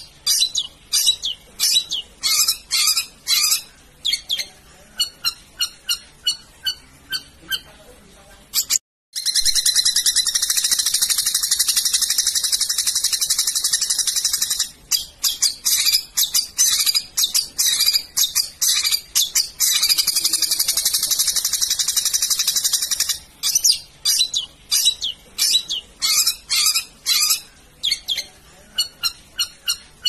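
Long-tailed shrike (cendet) singing: runs of short, sharp, high notes, broken twice by long, rapid, harsh chattering trills, about ten seconds in and again about twenty seconds in.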